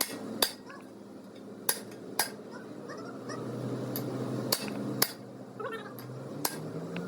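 A hammer striking metal, about six sharp irregular blows with a short metallic ring, over a steady low machine hum.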